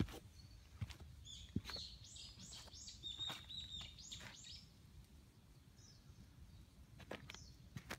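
A songbird calls a rapid series of short, high notes for about three seconds, starting a second or so in, while footsteps crunch and scuff on a leaf-strewn dirt trail.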